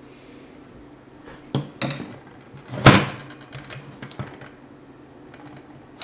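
An aerosol can of smoke-detector test spray being handled, with a few light clicks and one sharp knock about three seconds in, then a short hiss of spray into the smoke detector's vents right at the end.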